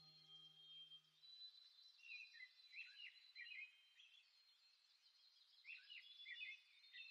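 Near silence with faint, short bird-like chirps in two small clusters, one in the middle and one near the end.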